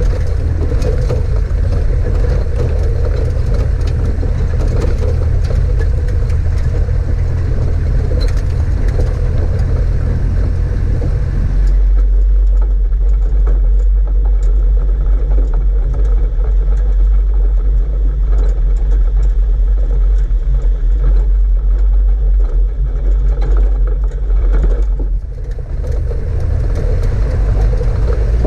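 Toyota four-wheel drive running along a rough dirt track: a loud, steady low rumble of engine and tyres. About twelve seconds in the higher rattle largely drops away, leaving a deeper rumble, and near the end it dips briefly and returns to the fuller sound.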